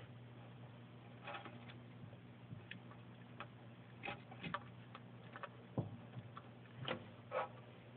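Bearded dragon biting and chewing a piece of carrot: faint, irregular clicks that come more often in the second half, over a steady low hum.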